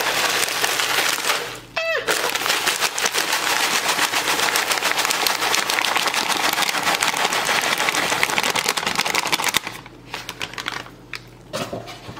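Dry stuffing-mix bread cubes poured from the bag into a plastic-lined slow cooker: a dense stream of tiny clicks and patters for about nine seconds, with a short break about two seconds in, then a few last scattered crumbs.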